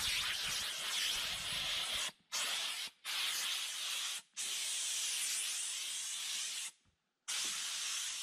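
Sprayer hissing as it sprays thin wood oil, in five runs that each start and stop abruptly, with short breaks about 2, 3, 4 and 7 seconds in.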